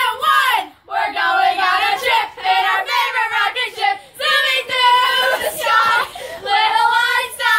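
Young girls singing a song together, with held, gliding notes and short breaks between phrases.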